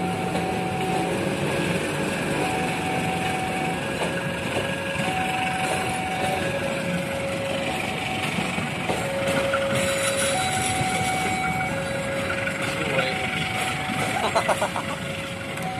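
A level-crossing alarm sounds two alternating tones, one high and one low, each held about a second and a half. Under it, the passenger coaches of the Serayu train roll slowly past, held to walking pace by a 20 km/h limit over renewed rails and sleepers. A short metallic clatter comes about fourteen seconds in.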